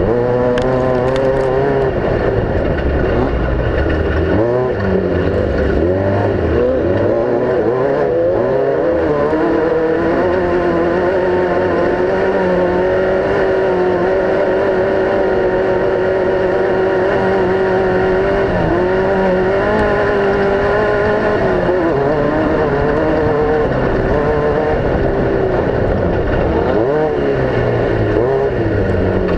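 Off-road racing vehicle engine running hard, its pitch rising and falling with the throttle, then holding steady and high for several seconds in the middle before dropping and climbing again near the end.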